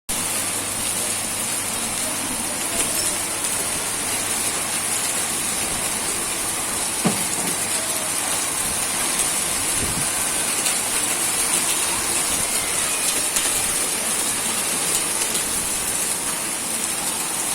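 Steady heavy rain falling, with a few scattered sharper ticks of drops striking close by.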